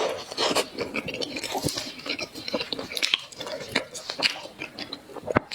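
Close-miked chewing and biting, with irregular crunchy crackles throughout.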